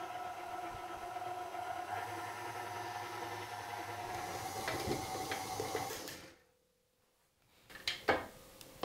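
KitchenAid Artisan stand mixer running steadily, its dough hook kneading freshly combined yeast dough ingredients in a glass bowl. The hum cuts off about six seconds in, and a couple of short knocks follow near the end.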